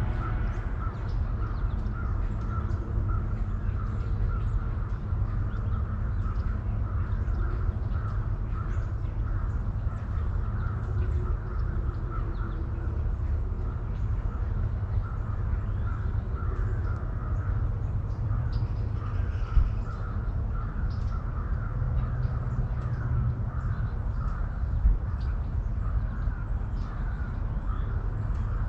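Birds calling over and over, a short call repeated about twice a second, over a steady low rumble. Two brief sharp knocks stand out, about twenty seconds in and again about five seconds later.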